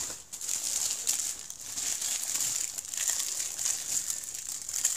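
Plastic bubble wrap crinkling and crackling unevenly as it is pulled off by hand.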